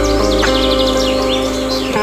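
Soft background music with long held notes that change every second or so, with small birds chirping over it.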